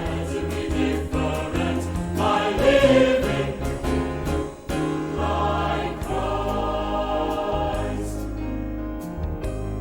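Choir singing a Christian worship song with instrumental accompaniment; the voices drop away about six seconds in, leaving the accompaniment playing on.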